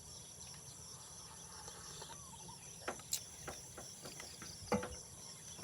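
Insects droning steadily with a high, even tone, with a few sharp clicks or knocks about halfway through and near the end.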